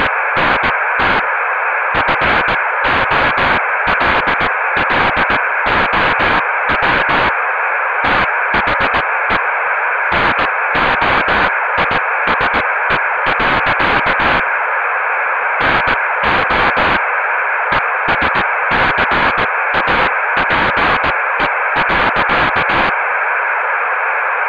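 Loud, steady static hiss centred in the midrange, broken by harsh crackling bursts that cut in and out irregularly, with two longer lulls in the crackle. The noise is like that of a damaged analog videotape.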